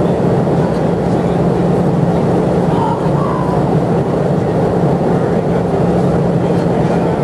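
Airliner cabin noise in flight: a steady roar of engine and airflow with a constant low hum, and a couple of faint clicks.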